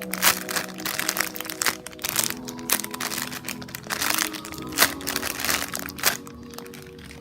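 Crinkling and crackling of a homemade squishy being squeezed and handled, over background music with a light melody; the crinkling stops about six seconds in.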